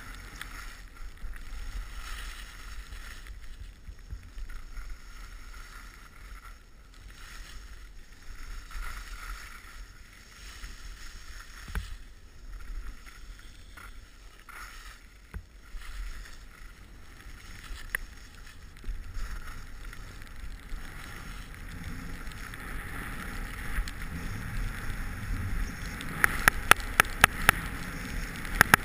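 Skis sliding through deep powder snow, a soft uneven swishing over a low steady rumble. Near the end comes a quick run of sharp clicks, the loudest sounds in the stretch.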